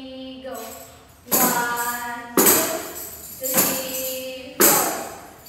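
Hand tambourines struck four times, about once a second, each hit a sharp jingle crash that rings on. Under them a song plays, opening on a held sung note.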